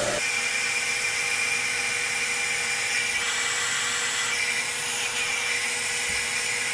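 Handheld hair dryer running steadily: a rush of air with a high motor whine, drying a section of hair wound on a round brush.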